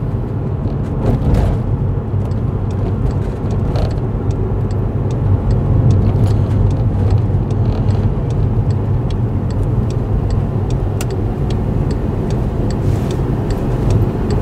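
A car heard from inside the cabin while it is driven, with a steady low engine and road rumble. From about five seconds in comes a regular ticking of the turn indicator, a few clicks a second, as the car nears a junction where it turns left.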